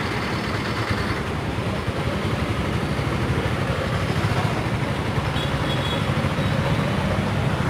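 Road traffic with a vehicle engine running close by, a steady low-pitched engine sound over general street noise.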